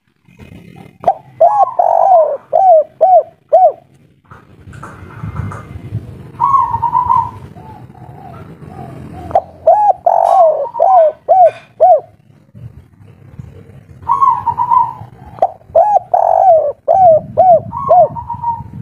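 Spotted dove (tekukur) cooing its 'kuk 3' song in three bouts, each a run of quick, arching coo notes. A low hum runs beneath.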